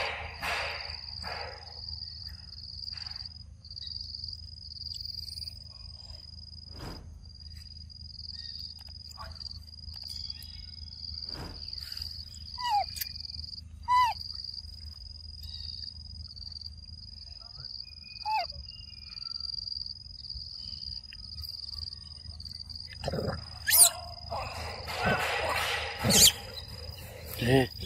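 Insects chirring in one steady high-pitched drone with brief breaks. A few short chirps sound in the middle, and there are sharp clicks and rustling near the end.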